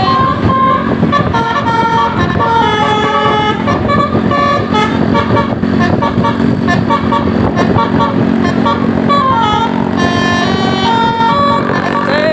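Bus 'telolet' musical air horn of the basuri type playing a tune in short stepped notes, over a steady low engine drone.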